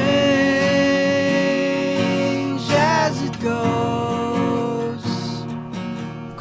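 Music: a song opening with guitar, starting abruptly at full level.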